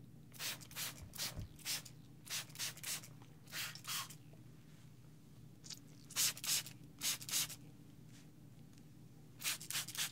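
Hand-pumped trigger spray bottle spritzing water: a dozen or more short, hissing spritzes in quick clusters of two to four, with short pauses between the clusters.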